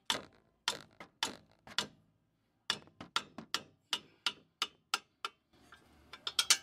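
Hammer striking the end of a combination wrench, a run of sharp metallic blows about three a second with a short pause about two seconds in, to break loose a tightly torqued 17 mm front brake caliper bracket bolt.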